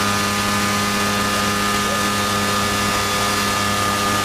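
Kitfox IV's Rotax engine and propeller running at full throttle for the takeoff roll, heard from inside the cockpit: a loud, steady drone held at full power.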